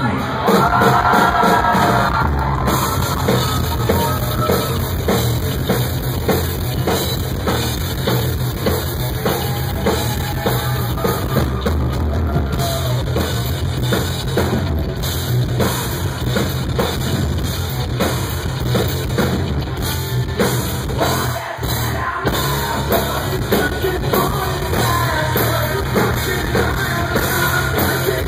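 Rock band playing live, heard loud from the crowd: a pounding drum kit with bass and electric guitars, and singing at the start and again near the end. The band breaks off for a moment about three-quarters of the way through.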